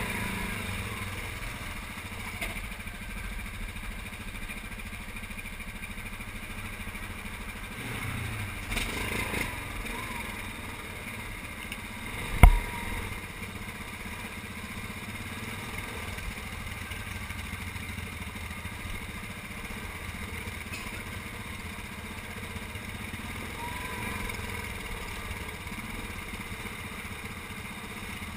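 Yamaha Grizzly 700 ATV's single-cylinder engine running at low trail speed over rocks, with the throttle thumbed in briefly a couple of times. A single sharp knock about twelve seconds in.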